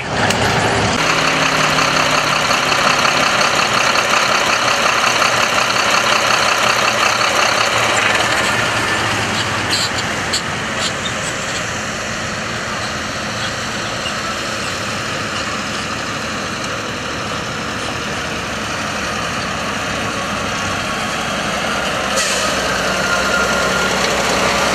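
Engine and road noise inside a truck cab while driving. About eight seconds in it changes to a steadier sound of old military trucks' engines running, with a few sharp clicks around ten seconds.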